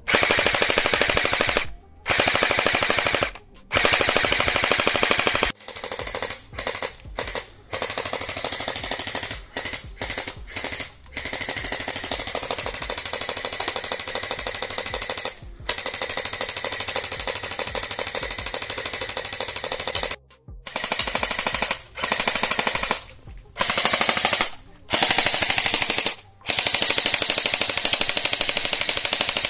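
Gel ball blaster firing on full auto: a rapid rattle of shots in bursts of one to several seconds, with short pauses between bursts.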